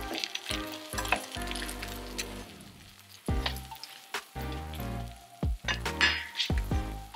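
Cheese sandwich slices sizzling as they fry in a metal skillet, with background music playing.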